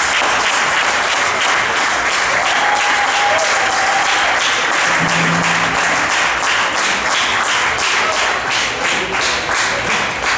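Audience applauding: steady, dense clapping that thins out into more separate claps near the end.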